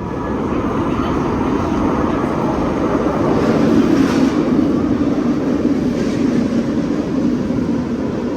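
MI 09 double-deck electric multiple unit pulling away, a continuous rumble of traction and running noise that swells about four seconds in and then eases slightly.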